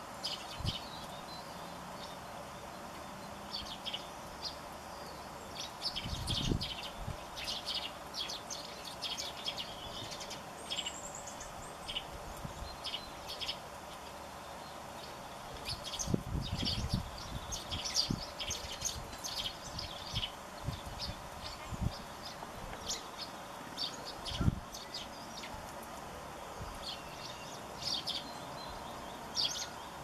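Tree sparrows chirping: clusters of short, quick, high chirps that come and go, with a few low thuds, the loudest about three quarters of the way through.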